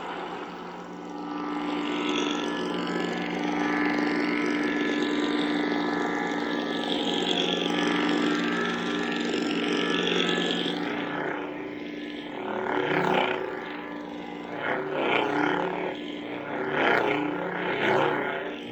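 Lightsaber soundfont's blade hum: a steady electric buzzing drone. From about twelve seconds in, a series of swing swooshes swell and fade in quick succession over the hum as the blade is moved.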